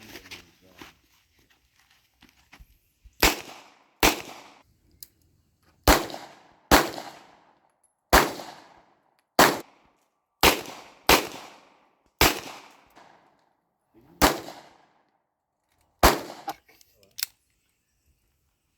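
A string of handgun shots, about eleven in all, fired at an uneven pace roughly one every second or two, each a sharp crack with a short echoing tail. They start about three seconds in, after the draw from concealment.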